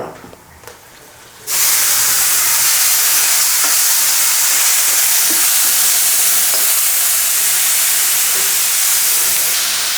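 Ground coconut-spice paste dropped into hot oil in a frying pan, starting to sizzle loudly and suddenly about a second and a half in, then sizzling steadily as it is stirred, with a few light scrapes and clicks.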